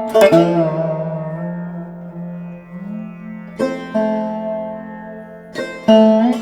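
Background music: plucked string notes that ring out and fade. They are struck in clusters at the start, about three and a half seconds in, and again near the end, over a held low note.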